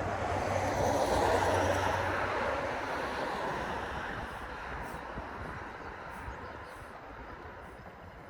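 A passing vehicle: rushing road noise swells about a second in, then fades away slowly.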